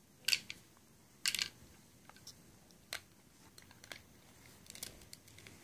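Plastic Lego bricks clicking and knocking as they are handled and pressed together: two sharp clacks in the first second and a half, then a few fainter clicks.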